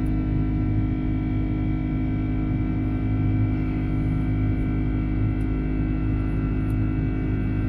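Rolls-Royce Trent 700 turbofans of an Airbus A330 at climb power after take-off, heard inside the cabin: a steady drone with several fixed tones over a deep hum.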